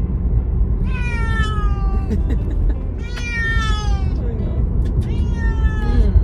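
A cat meowing three times, each meow about a second long and falling in pitch, over a steady low rumble.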